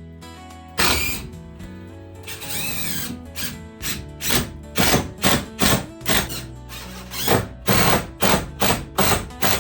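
Power drill driving screws, its motor spinning up and down in short bursts about twice a second, over background music.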